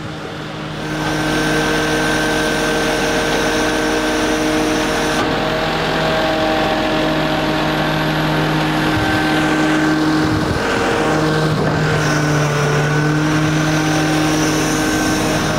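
Tow truck on the move: a steady engine drone with road noise, its pitch shifting slightly a few times.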